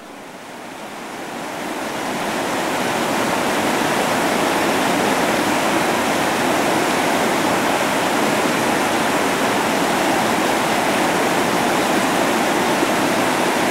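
Steady rush of whitewater rapids, swelling louder over the first two or three seconds and then holding level.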